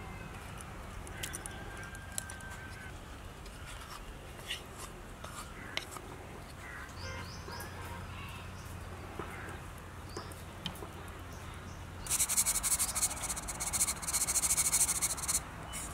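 Outdoor background with faint scattered bird chirps and small clicks as ingredients go into an aluminium bowl. About twelve seconds in, a loud, high, crackling hiss starts suddenly and cuts off about three and a half seconds later.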